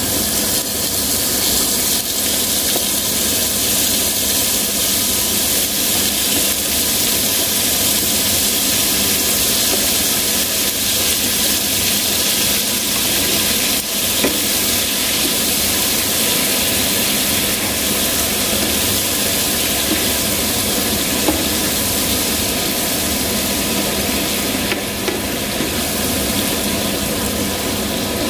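Cut squid pieces sizzling in oil in a nonstick frying pan, stirred with a spatula, with a few light taps of the utensil on the pan.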